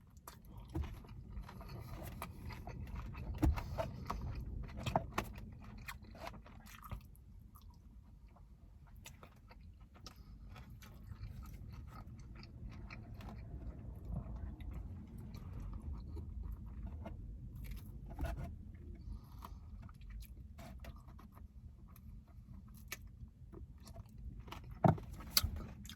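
Close-up chewing and crunching of sticky dry-fried chicken wings, with irregular wet mouth clicks and a few louder crunches.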